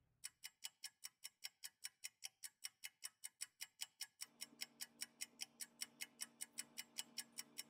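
Ticking-clock sound effect: rapid, even ticks, about five a second. A low steady hum joins about four seconds in.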